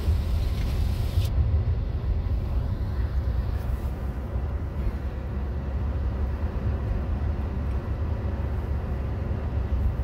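Car driving, a steady low rumble of engine and tyre noise heard from inside the cabin.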